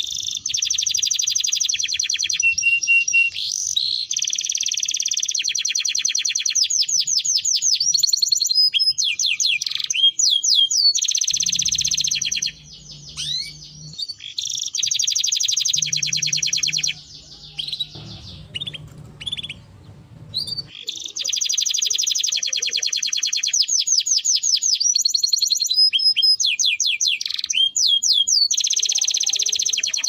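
Domestic canary singing: long, very fast rolling trills and rapid runs of repeated notes, with quick rising and falling sweeps between them. The song breaks off briefly twice in the middle before resuming.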